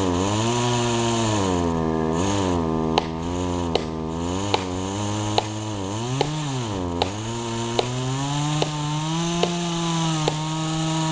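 Two-stroke chainsaw engine revving up and down repeatedly, its pitch rising and falling. From about three seconds in, a sharp tick sounds roughly every 0.8 seconds over the engine.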